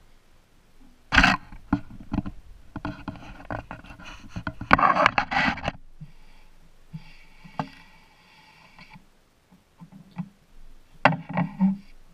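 Scraping, knocking and clattering of objects being handled and set down close by. A long run of it fills the first half, then it quietens, with a few more sharp knocks near the end.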